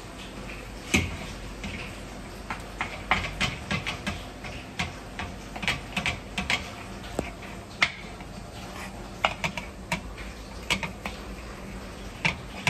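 Wooden spatula tapping and scraping on a thin metal pan as it breaks up raw minced meat: an irregular run of light clicks and knocks over a faint low hum.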